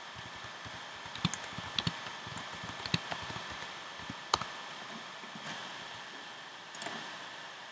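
Scattered computer keyboard and mouse clicks, a few sharp taps in small clusters, over a steady background hiss.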